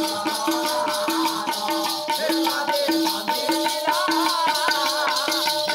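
Folk dance music of a Karma festival: a hand-played two-headed drum beating a steady rhythm under fast, even jingling like rattles or ankle bells, with a held melodic tone above.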